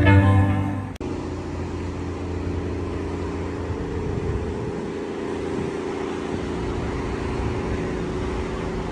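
Music stops abruptly about a second in, leaving a steady low rumbling outdoor noise with no distinct events.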